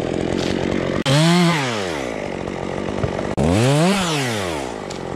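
Stihl top-handle chainsaw cutting wood, revved up twice, its pitch each time rising and then falling back as it works through the cut.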